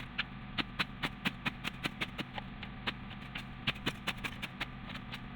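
Generator engine running steadily, a low hum, under rapid, irregular sharp clicks and knocks, several a second.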